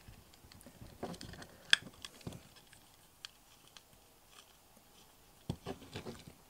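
Hex key turning a bolt in a 3D-printed plastic winder block: scattered small clicks and taps of metal on plastic, the sharpest about a second and a half in, and a few more near the end.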